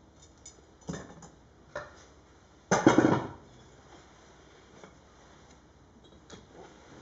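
Hard knocks and clatter as things are handled at an open fireplace being readied for lighting: a single knock about one second in, another about two seconds in, then a louder burst of clatter about three seconds in.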